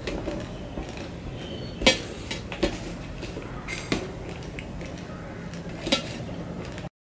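Fingers scraping and gathering rice across a stainless steel plate, with four sharp clicks of fingers against the metal, the loudest about two seconds in.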